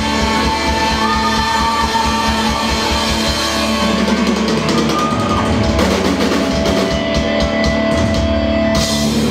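Live rock band playing electric guitar over a drum kit, loud and steady: the last bars of a song.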